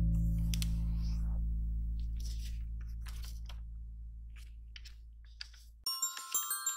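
Background music with sustained low notes fading steadily, with short crisp rustles and creases of origami paper being folded and pressed flat. About six seconds in the low notes cut off and a bright glockenspiel-like mallet tune begins.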